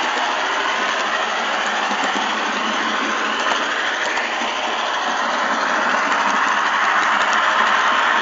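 Model train running along the layout track: a steady whir of its small electric motor and wheels on the rails, with the pitch drifting slowly up and down and a few light clicks.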